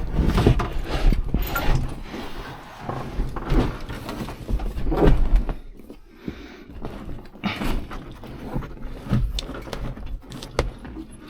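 Irregular bumps, knocks and rustling from interior trim and panels being handled and pushed into place inside a truck cab, heaviest in the first half.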